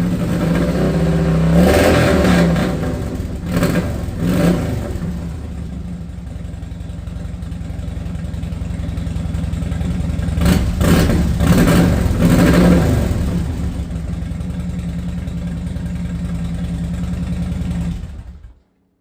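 Fuel-injected Harley-Davidson Dyna Wide Glide V-twin engine running, revved in short throttle blips several times, with a bigger cluster of blips around the middle, then shut off suddenly near the end. It has just been brought back to life with a new fuel pump after sitting for years, and has a little popping that the owner plans to treat with fuel cleaner for the injector.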